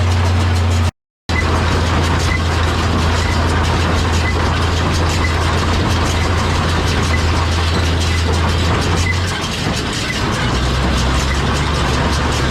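Tractor engine running steadily while pulling a John Deere small square baler, with a faint regular click about once a second. The sound cuts out completely for a moment about a second in, and the engine note drops lower near the end.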